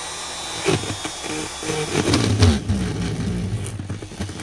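Handheld electric straight grinder (rotary tool) turned down to speed setting 2. A click, then the motor's pitch slides down and settles into a lower, steady run.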